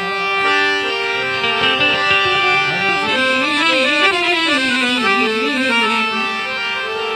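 Instrumental interlude of a Gujarati santvani devotional song, led by a harmonium playing held, stepped notes. About three seconds in, a wavering, gliding melody line joins it.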